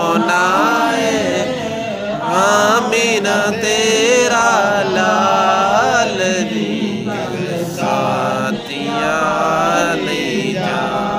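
A man singing a naat, a devotional Islamic poem, solo into a microphone, drawing out long ornamented lines whose pitch winds up and down without a break.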